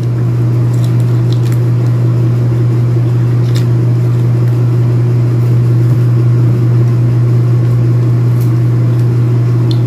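A steady low hum, the loudest thing throughout, with a few faint clicks of someone biting and chewing pomelo.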